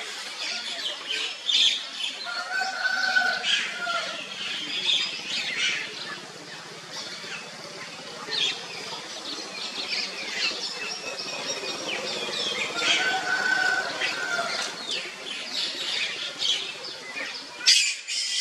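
Wild birds chirping in the trees: many short high chirps, and twice a whistled phrase of two steady notes. A sudden sharp loud sound comes near the end.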